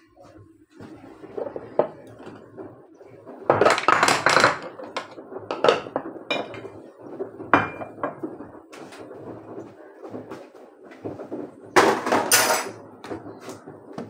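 Dishes, pots and cutlery clattering and clinking on a kitchen counter in a run of separate knocks, with two louder, longer clatters, one about four seconds in and one near the end.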